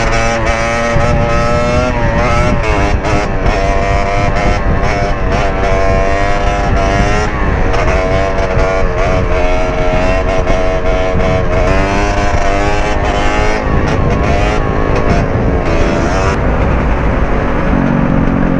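110cc pit bike's single-cylinder four-stroke engine running hard, its pitch rising and falling repeatedly as the throttle is worked, with heavy wind rumble on the helmet microphone.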